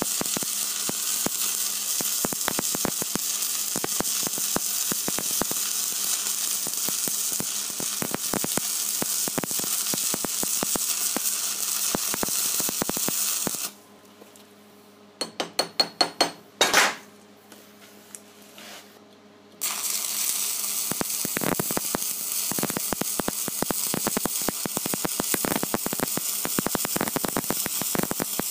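Stick-welding arc crackling and sizzling steadily on a 70-amp capping run with low-hydrogen rods. About halfway through, the arc stops for about six seconds, broken by a quick run of sharp clicks. The arc then restarts and crackles on to the end.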